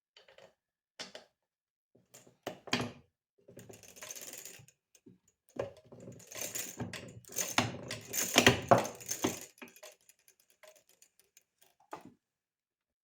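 Small metal parts and hand tools clicking and clinking as bolts are fitted on the kick pedal of a 1932 Maytag engine. Scattered sharp taps, then a denser run of clattering in the middle, the loudest part, tapering off to a few light clicks.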